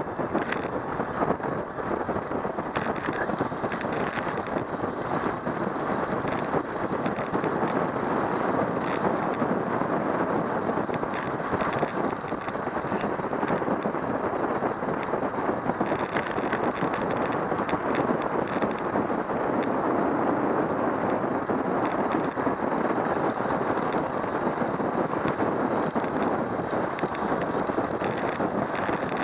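Wind rushing over the microphone of a camera on a bicycle speeding downhill: a steady rush of noise, with scattered small clicks and rattles.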